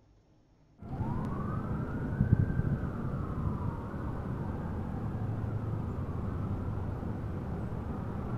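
A distant siren wailing, its pitch rising slowly, then falling and wavering, over a steady low rumble. The sound starts suddenly about a second in.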